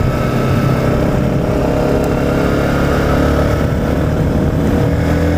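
Honda CBR125 single-cylinder four-stroke engine running steadily under way, with wind noise. The engine pitch shifts slightly near the end.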